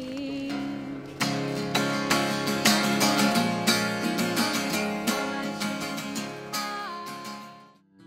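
Steel-string acoustic guitar strummed in chords, with repeated strokes ringing on. It fades out quickly near the end.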